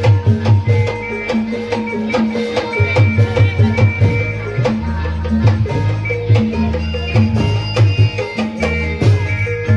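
Live reog accompaniment music: drums struck in a fast, dense rhythm over short pitched notes repeated again and again.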